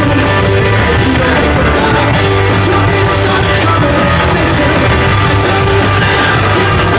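Rock band playing loud live in a club, with heavy bass, drums and cymbal crashes, and a voice singing over it.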